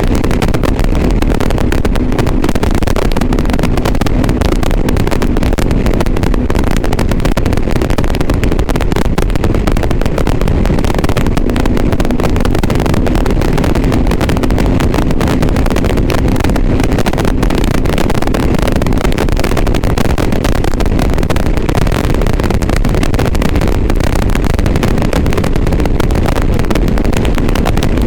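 Motorcycle riding at a steady speed: engine hum under heavy, rumbling wind noise, picked up by a GoPro Hero 7 Black's external microphone, which gives the recording a bad sound.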